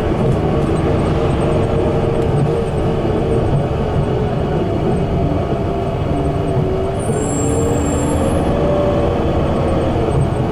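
Inside a 2016 Gillig BRT bus cruising at freeway speed: its Cummins Westport natural-gas engine and Allison B400R automatic transmission run under steady load over constant road and tyre noise, with a whine that drifts a little in pitch.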